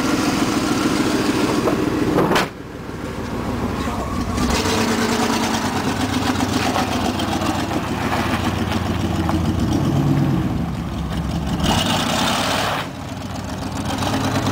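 A 1991 Chevrolet pickup's 350 V8 running, its revs rising and falling at times. There is a sharp knock about two seconds in.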